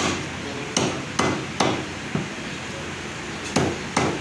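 Heavy meat cleaver chopping mutton on a wooden log chopping block: sharp chops, four in quick succession, then a pause of about two seconds and two more near the end.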